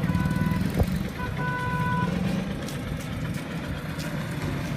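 Street traffic with an engine running steadily and a vehicle horn beeping twice: a short beep, then a longer one about a second later.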